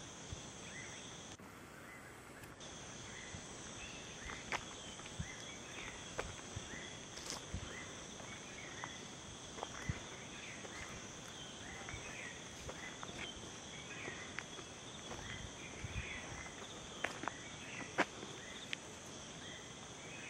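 Outdoor garden ambience: a steady high-pitched insect drone with frequent short chirps over it, and scattered sharp clicks, the loudest near the end.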